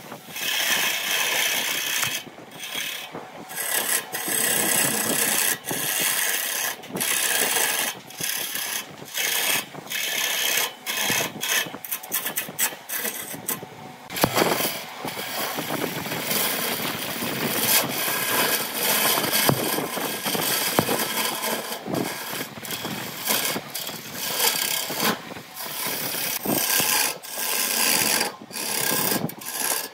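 Hand turning tool cutting into a wooden vase blank spinning on a wood lathe: a hissing, scraping cut in repeated passes, broken by many short gaps.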